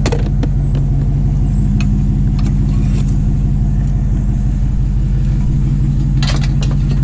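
Vehicle engine running steadily with a low hum, with a few light clicks and rattles about six seconds in.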